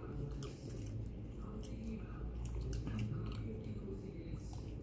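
Someone chewing sushi up close: wet mouth and chewing sounds with scattered soft clicks, over a steady low background hum.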